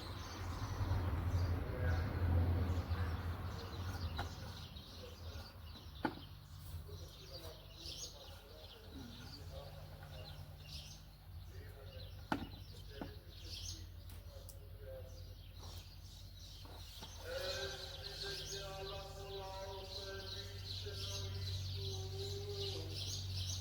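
Small birds chirping throughout. There are two sharp clicks, and a steadier, voice-like pitched sound joins for the last several seconds.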